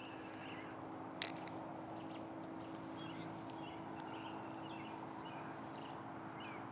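Quiet outdoor background: a steady low hum with faint, short high chirps scattered through it and a single sharp click about a second in.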